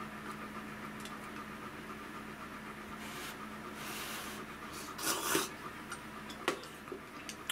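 Quiet eating sounds: noodles slurped from a stainless sierra cup with chopsticks, with one short slurp about five seconds in and a few light clicks afterwards, over a faint steady hum.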